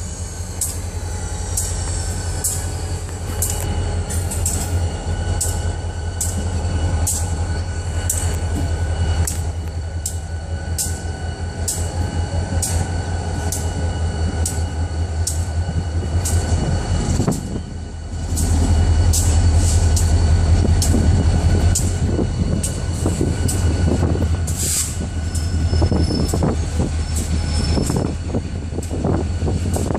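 Diesel freight locomotives rolling slowly past: a steady low engine drone, wheels clicking regularly over the rail joints, and a faint high wheel squeal. The drone grows louder a little past halfway through.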